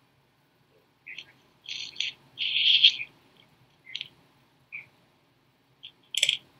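A small bird chirping in a series of short, high-pitched calls, the longest and loudest about two seconds in.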